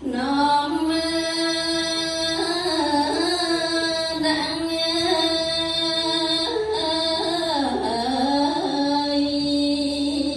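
Khmer Buddhist flower-offering song: a single voice sings one long, slow phrase of held notes that bend and waver in ornaments.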